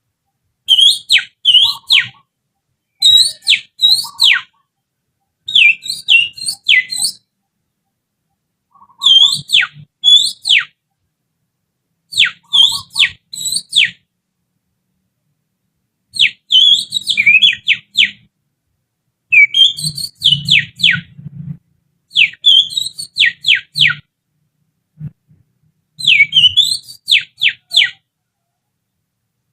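Finger whistling, blown through the little finger to imitate oriental magpie-robin song as a lure for a caged bird. It comes in about ten short bursts of quick, sharply falling and rising whistled notes, with pauses between them.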